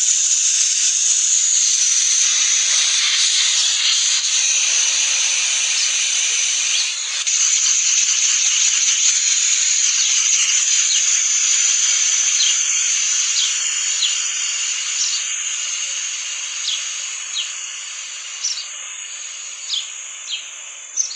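Compressed air hissing out through the open valve of a refrigeration gauge manifold as a refrigerator system pressurised to 120 psi for leak testing is vented. The loud, steady hiss fades gradually over the last several seconds as the pressure drops.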